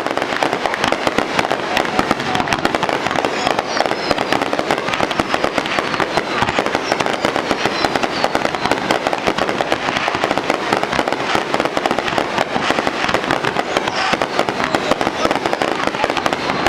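Aerial fireworks going off in a rapid, unbroken barrage: many shells bursting one on another with dense crackling, and a few faint whistles.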